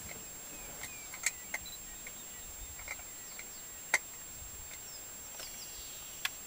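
Faint background hiss with scattered short, downward-sliding bird chirps and a few sharp clicks, the loudest click about four seconds in.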